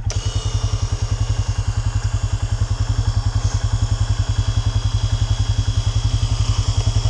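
Vehicle-mounted electric winch whining as it winds in, trying to pull the vehicle out of deep snow, over the steady rapid pulsing of the vehicle's idling engine.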